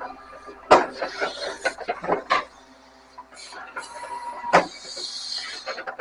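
Grapple truck handling waste: a steady hum runs under irregular knocks and clatter. There are two sharp bangs, one about a second in and one about two-thirds of the way through.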